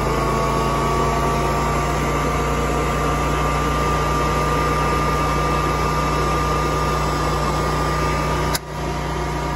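Generac standby generator engine running steadily on propane just after starting. About eight and a half seconds in, a single sharp clack as the automatic transfer switch's plunger snaps over to generator power.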